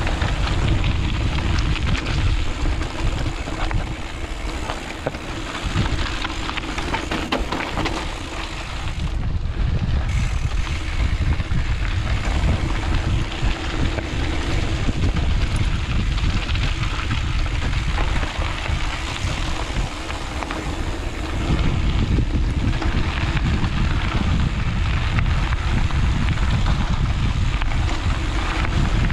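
Wind rushing over the microphone as a mountain bike coasts fast downhill on a dirt trail, with the tyres rumbling and the bike rattling over bumps.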